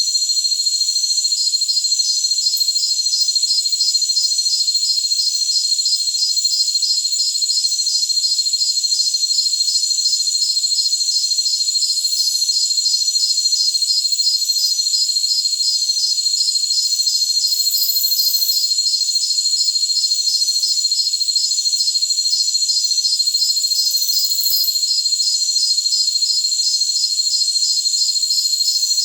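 Jungle crickets calling in a dense, high-pitched chorus: one steady unbroken trill, over it a quick, even pulse of chirps, and a higher shimmering band, all continuous without a break.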